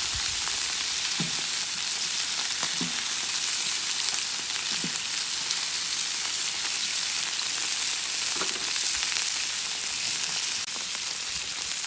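Food frying in olive oil in a large paella pan over a wood fire: a steady, dense sizzle with a few brief low pops.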